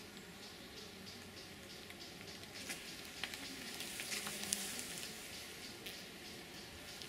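A steel hive tool scraping and cracking wax comb on a beehive frame, with sharp clicks bunched in the middle as the frame is worked loose and lifted, over the faint hum of honeybees.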